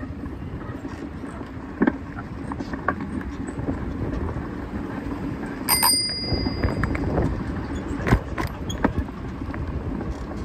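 Bicycle riding along a paved street: a steady rumble of tyres and wind with scattered short knocks and rattles from the bike. About six seconds in, a bicycle bell rings once, its ring dying away over about a second.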